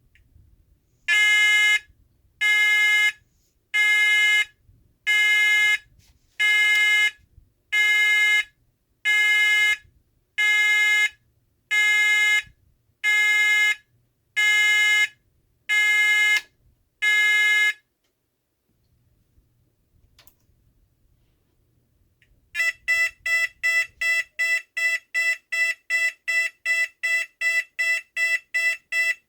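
Federal Signal SLM800R electronic sounder running through its tone patterns. First it plays a slow pulsed tone: twelve even beeps about one and a half seconds apart. After a pause of a few seconds it switches to a higher, fast pulsing tone at about three pulses a second.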